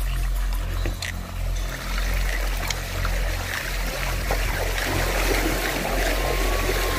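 Mountain bike tyres rolling over a dirt and gravel trail: a steady crunching hiss over a low rumble, the hiss growing fuller from about two seconds in.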